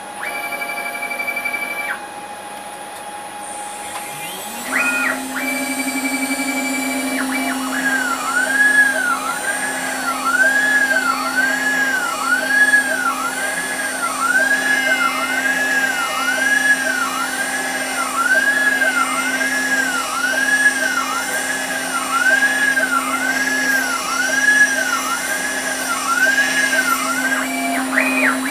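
6040 CNC router at work: the spindle spins up with a rising whine a few seconds in and settles to a steady tone at 12,000 RPM. A single-flute end mill then cuts ABS plastic while the motors whine in a rise-and-fall that repeats about twice a second as the tool traces a circular contour.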